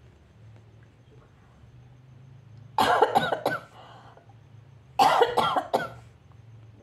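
A person coughing in two short fits, each of three or four coughs, the first about three seconds in and the second about two seconds later.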